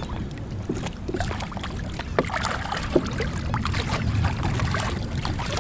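Water sloshing and splashing in short, irregular bursts over a steady low rumble.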